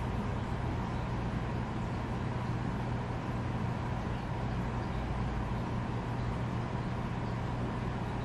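Steady low hum and even hiss of background room noise, with no distinct sounds.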